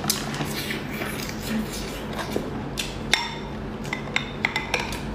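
Close-up eating sounds from a cooked lobster claw: scattered sharp clicks and crackles of the shell being bitten and handled, with a few light clinks against a glass sauce bowl as the claw is dipped, near the end.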